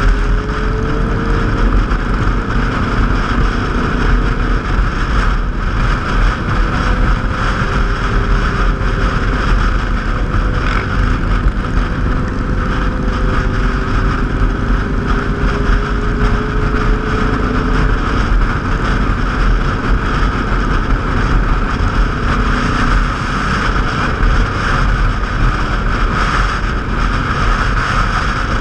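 Motorcycle engine running at riding speed, its pitch drifting slowly up and down, under heavy wind rumble on the microphone.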